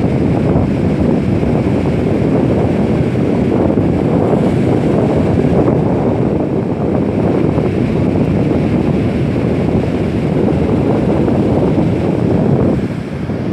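Wind buffeting the microphone, a loud steady rumble, over ocean surf breaking on the beach; the wind eases off near the end.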